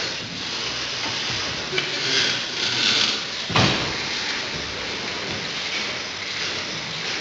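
1894 Hathorn Davey steam pumping engine running, a steady hiss with the clatter of its rods and valve gear, and a sharp knock about halfway through.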